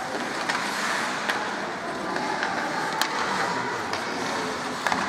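Ice hockey rink sounds during play: a steady hiss of skates on the ice and arena noise, with several sharp clacks of stick and puck.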